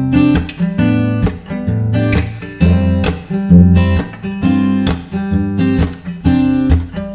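Background music on acoustic guitar: plucked and strummed chords, one after another.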